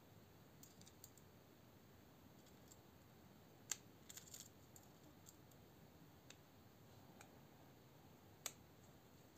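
Faint, scattered small metallic clicks and ticks of a Torx screwdriver bit and small screws against a folding knife's metal handle frame during disassembly. Two sharper clicks, one a little over a third of the way in and one near the end, with a quick cluster of lighter ticks just after the first.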